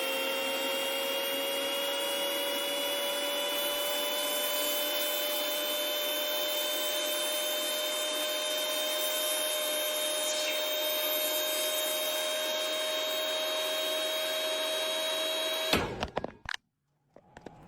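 Microwave oven running: a steady hum with a high whine that creeps slightly upward in pitch. About a second and a half before the end it stops with a sharp click.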